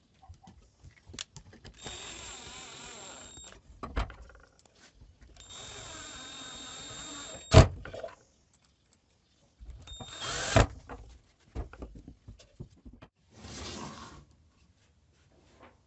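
Power drill run in short bursts, four runs of a second or two each with pauses between, and a few sharp knocks, the loudest about halfway through.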